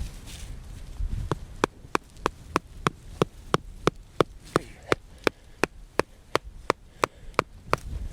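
A tent stake being hammered into the ground with about twenty sharp, evenly paced blows, roughly three a second, starting about a second in.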